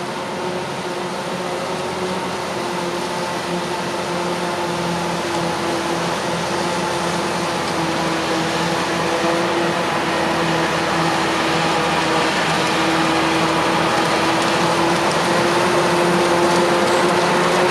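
Heavy farm machinery at a maize harvest running steadily with a constant whine over engine noise, growing gradually louder as it nears.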